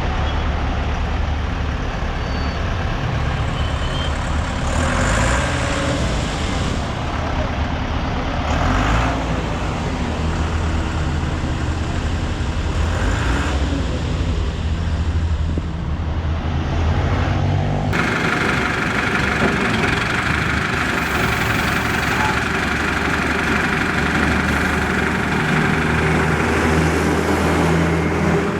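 Motor vehicles running on a road, a steady low engine hum mixed with traffic and road noise. The sound changes abruptly about two-thirds of the way through, becoming brighter and hissier.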